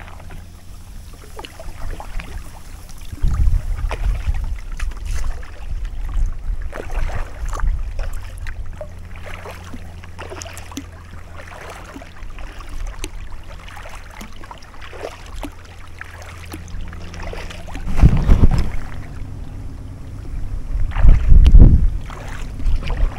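Kayak paddle strokes splashing into river water, with wind rumbling on the microphone. The wind comes in two loud gusts, about 18 and 21 seconds in.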